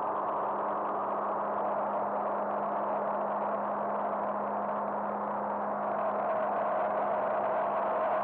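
Cirrus SR20's propeller engine and airflow droning steadily in the cabin on final approach, with a constant low hum under the noise. It grows slightly louder about six seconds in.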